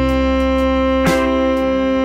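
Instrumental background music: one long held melody note over a steady bass, with light ticks of percussion.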